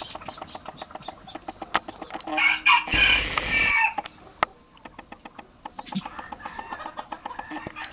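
A loud bird call lasting about a second and a half, starting a little over two seconds in, over a steady patter of quick faint clicks.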